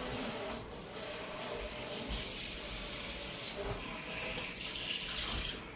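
Kitchen tap running steadily into a sink while a tomato is rinsed under it; the water is shut off sharply near the end.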